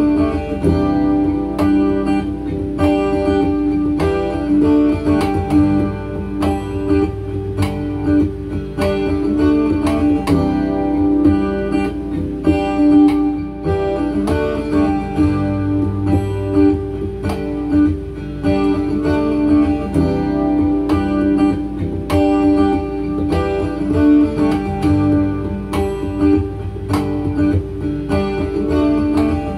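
Acoustic guitar played through a looper pedal in an improvised jam: fingerpicked and strummed notes layered over held, repeating guitar loops.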